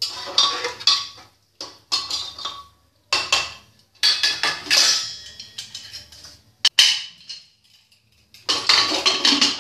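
Metal ladle scraping and clinking against the inside of an aluminium pressure cooker while stirring a curry, in a string of short clattering strokes with brief silent gaps and one sharp click near the end.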